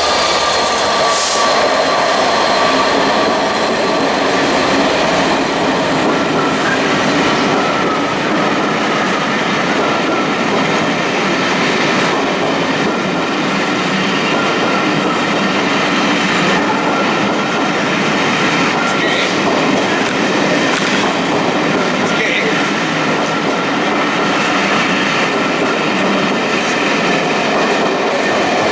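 A train running past close by, wheels on the rails making a steady, loud rumble the whole time, with a few faint clicks over rail joints and a thin steady high tone from the wheels.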